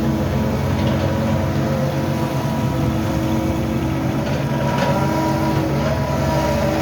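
An engine running steadily at an even speed, with a low hum and no change in pitch.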